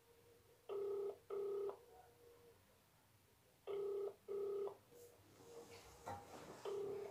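Telephone ringback tone playing through a mobile phone's speaker: a double ring of two short buzzing tones, repeated three times about every three seconds while the call waits to be answered.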